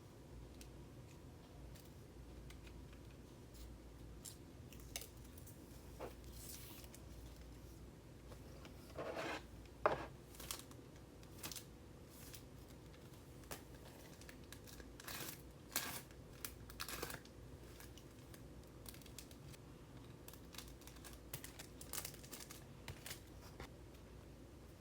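Scattered small clicks and brief scraping noises, with a cluster of them in the middle stretch, over a faint steady background.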